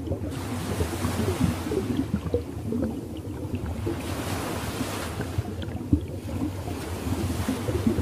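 Waves washing in and drawing back, a hiss that swells and fades every couple of seconds, with scattered low thumps underneath, the loudest about six seconds in.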